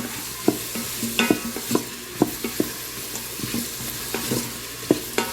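Onions and green bell pepper sizzling in olive oil in an Instant Pot on sauté, with a utensil knocking and scraping against the pot at irregular moments as they are stirred.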